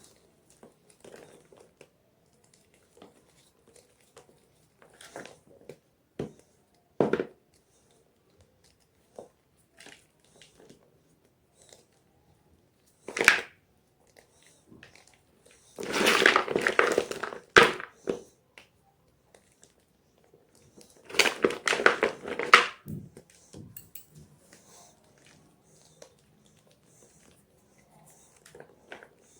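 Gym chalk crunching and crumbling: scattered small crackles, two sharp single crunches, then two longer runs of dense crunching after the middle.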